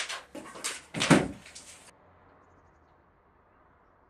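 A few short, dull thumps with some rustling in the first two seconds, then near silence.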